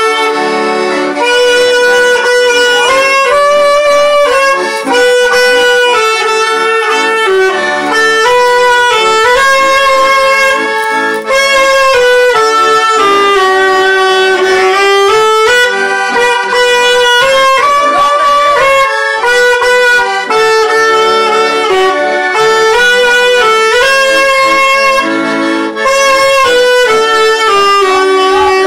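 Saxophone playing a melody, with an accordion accompanying underneath.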